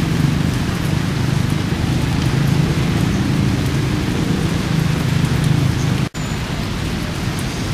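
Steady hiss of rain falling, under a steady low rumble. The sound cuts out for an instant about six seconds in.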